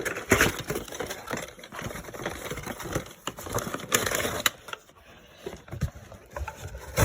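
Packaging being opened by hand: irregular rustling, scraping and crinkling, with a few short sharp clicks.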